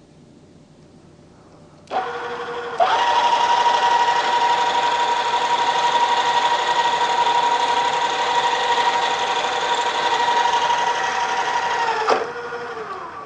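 Drill press switched on about two seconds in. A twist drill runs steadily through the workpiece for about nine seconds, a steady whine with a buzzing edge, to finish a hole started with a center drill. The cutting stops about twelve seconds in, and the motor's whine then falls in pitch as the spindle winds down.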